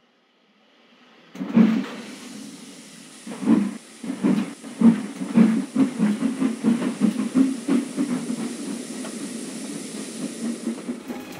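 Steam locomotive starting away: steam hisses, then a loud exhaust chuff comes about a second and a half in. Slow, heavy chuffs follow and quicken into an even beat of about three a second, with steam hissing under them.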